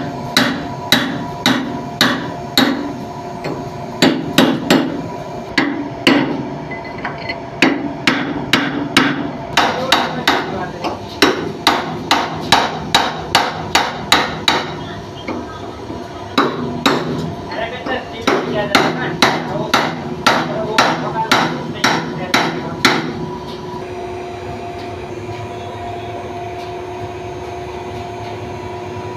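Hammer blows, about two a second, in runs with short pauses, stopping about 23 s in. A steady machine hum runs underneath and is heard alone after the hammering ends.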